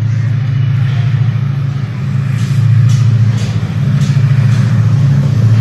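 Diesel locomotive engine drone, a steady low rumble that grows louder a little over two seconds in as the train draws closer.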